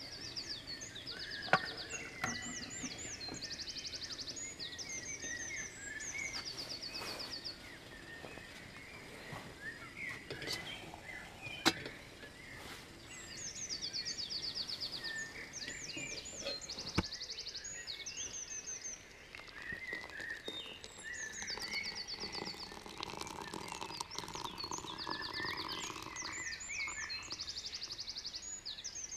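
High-pitched trilled animal calls, one short phrase every few seconds, with a few single sharp clicks or knocks in between.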